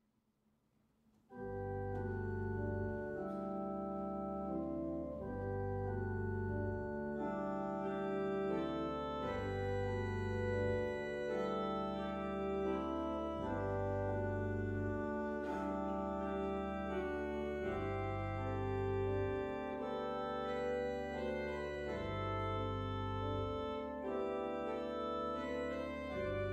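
Church pipe organ starting about a second in, playing slow, sustained chords over low pedal bass notes that come and go.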